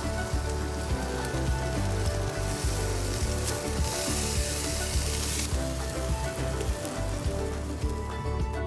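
Chicken drumsticks sizzling on foil on a gas grill, a steady hiss that grows louder for a few seconds in the middle and fades near the end. Background music with a steady beat plays under it.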